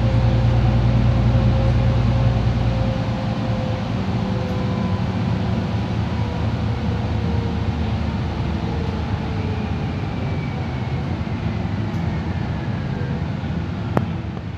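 Solaris Urbino 12 IV city bus heard from inside while driving: engine hum, drivetrain whine and tyre hiss on a wet road. The deep engine hum eases off about three seconds in, and the faint whines slowly fall in pitch. A single sharp click comes near the end.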